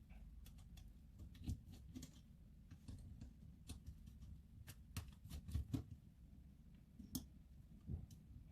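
Faint, irregular clicks and light taps of small plastic parts and tools being handled as a Canon SX730 camera's display is eased off and its ribbon cables unplugged.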